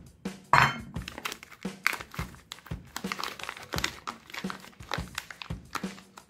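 Crinkling of a soap bar's plastic wrapper as it is handled, loudest about half a second in. Background music with a steady drum beat plays underneath.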